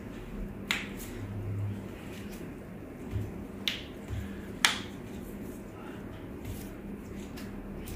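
Three sharp clicks as the toes and foot are manipulated during a chiropractic adjustment: joints popping under the practitioner's hands. The loudest pop comes about four and a half seconds in.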